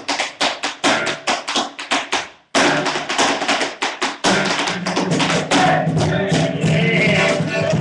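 Live acoustic music with guitar and hand percussion under a fast run of sharp percussive taps. The sound cuts out completely for a moment about two and a half seconds in.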